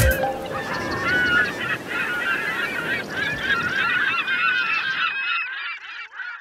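A flock of birds calling, many short calls overlapping, over a low rumble that stops near the end as the calls fade out.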